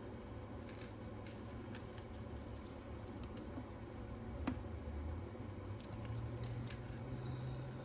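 Faint light clicks and scratches of small repair tools handling tiny tablet parts, with one sharper tick about halfway, over a low steady hum.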